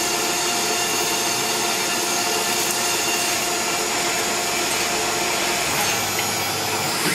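Tormach PCNC CNC mill drilling spoke holes: the spindle runs with a steady whine of several even tones over the hiss of flood coolant spraying onto the drill and work.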